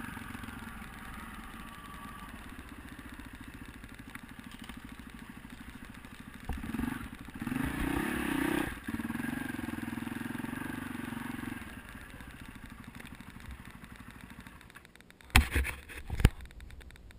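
Four-stroke single-cylinder dirt bike engine running on the trail, revving up hard about seven to nine seconds in, then settling back and running quieter for the last few seconds. Near the end come two loud knocks as a gloved hand touches the camera.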